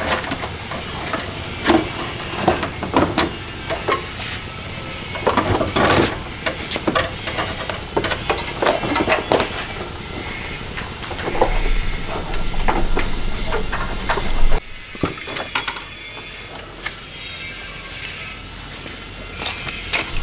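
Workshop clatter from hand work on a car: scattered knocks and clanks, with a steady low hum for about three seconds in the middle.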